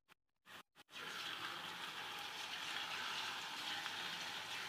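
Potato batter stars shallow-frying in hot oil in a flat pan, giving a steady sizzle. It starts about a second in, after a moment of silence.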